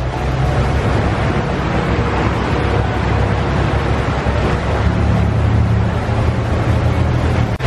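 Tour boat's engine running with a steady low drone, over the rushing, churning water of its wake.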